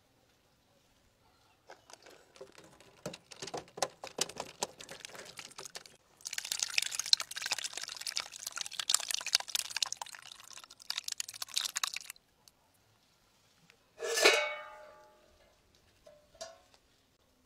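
Thick egg-omelet batter pouring from a bowl into a paper-lined dish in a wet, crackling stream, growing fuller and louder about six seconds in and stopping about twelve seconds in. Then one ringing metal clank about two seconds later, followed by a small knock.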